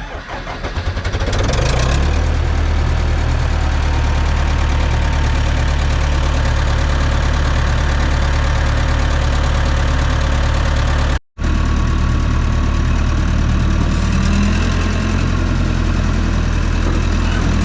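Massey Ferguson dozer's diesel engine just fired up, building over the first two seconds and then running steadily at idle. The sound drops out for a split second near the middle, and the engine note shifts slightly a few seconds before the end.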